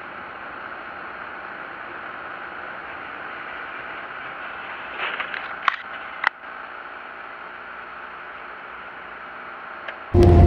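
Dashcam recording from inside a car driving in the rain on a wet road: a steady hiss of road and tyre noise, with a couple of sharp clicks a little past halfway. A much louder engine sound cuts in right at the end.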